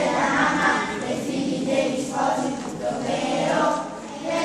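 Children's choir singing a cappella, several voices together in a sustained sung melody.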